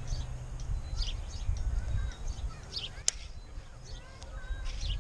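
Small birds chirping with short repeated calls over a low rumble, and a single sharp click about three seconds in.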